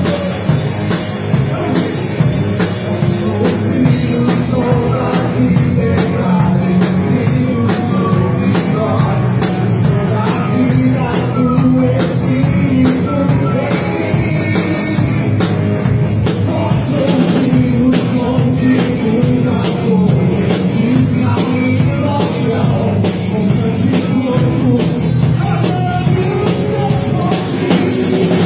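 Christian worship band playing an upbeat rock-style song with a drum kit keeping a steady beat, mostly an instrumental passage.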